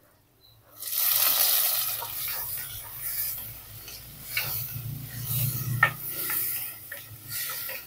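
Tomato wedges hitting hot oil in a clay pot with sautéed onion and garlic, sizzling loudly from about a second in. The sizzle fades as they are stirred with a wooden spatula, with a few sharp scrapes against the pot.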